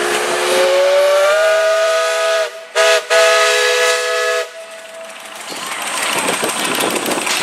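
Steam whistle on a half-scale Case steam traction engine blowing one long blast, its pitch rising slightly as it opens up and broken off twice for an instant midway, before stopping a little past halfway. Steam hiss and running noise build up after it.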